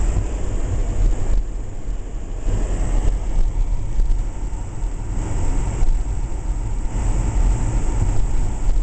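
Car driving slowly on snow-covered streets, heard from inside the cabin as a steady low rumble of engine and tyres.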